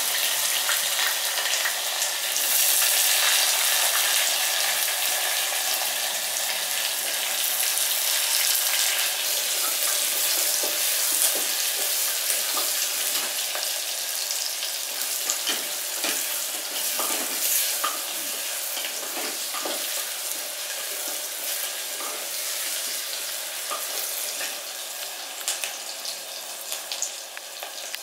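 Sliced onions sizzling in hot oil in an aluminium pressure cooker as they sauté, with short scrapes of a wooden spatula stirring them. The sizzle slowly gets quieter.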